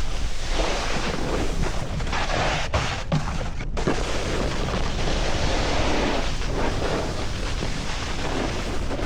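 Wind rushing over the microphone during a fast run down the slope, a steady loud noise, mixed with the hiss of a snowboard sliding over snow.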